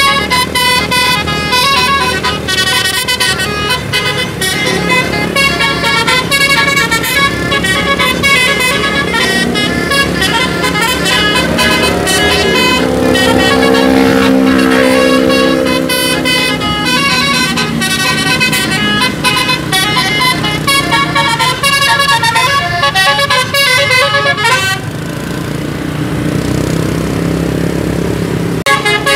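A bus's telolet musical horn playing fast, tooting runs of notes, with a deeper, lower-pitched horn chord sounded for a few seconds around the middle. About 25 seconds in the horn stops, leaving engine and road noise, and the notes start again right at the end.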